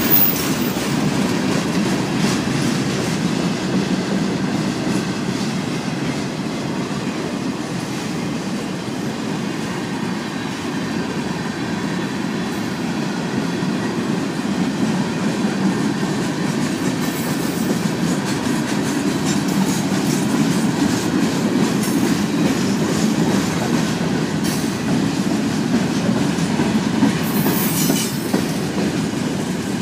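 Freight cars of a Florida East Coast Railway train rolling past on the rails, a steady rumble of wheels on track. A few brief high-pitched wheel squeals come in the second half.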